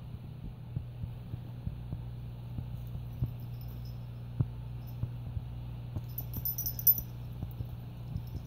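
A cat playing with a fabric kicker toy on carpet: scattered soft taps and scuffs from its paws and the toy, with a brief metallic jingle of its collar tag about six to seven seconds in, over a steady low hum.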